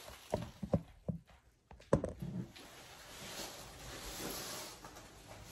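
A few short knocks in the first two seconds, then a soft, steady rustling of a hand sweeping foam packing peanuts together on a rug.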